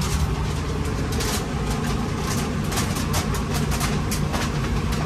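A steady low mechanical drone of a running engine or motor, with scattered light clicks and knocks throughout.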